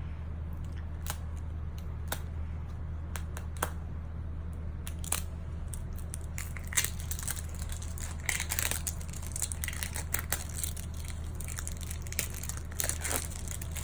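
A surprise toy's wrapper being crinkled and torn open by hand: sparse crackles at first, getting busier from about a third of the way in, over a steady low hum.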